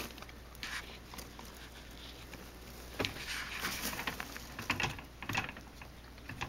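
A pet rabbit moving about in her carrier: a handful of short, scratchy rustles and clicks, scattered and irregular, the loudest about three and five seconds in.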